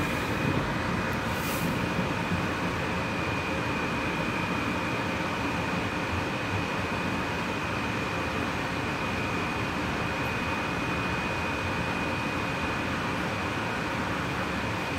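AirTrain JFK people-mover car running on its elevated guideway, heard from inside the car: a steady rumble of the running gear with a thin, steady high-pitched whine over it.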